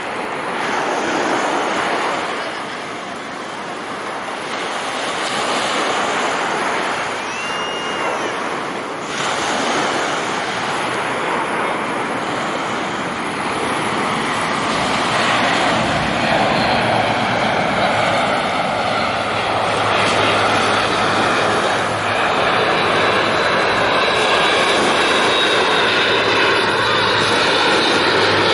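Airbus A400M Atlas's four turboprop engines running in a display flypast, a dense drone that grows louder as the aircraft comes overhead. A low steady propeller hum joins in about halfway through.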